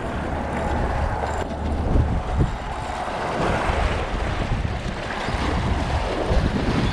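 Wind buffeting the microphone, with choppy water washing against shoreline rocks.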